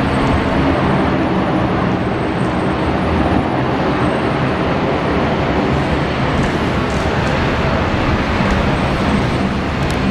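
Jet aircraft engines running, a loud steady rush of noise that holds level throughout.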